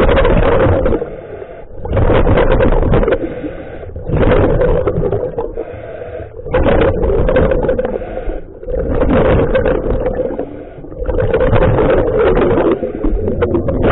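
Scuba diver breathing through a regulator underwater: a rush of exhaled bubbles about every two seconds, about six in all, alternating with the quieter hiss of each inhale.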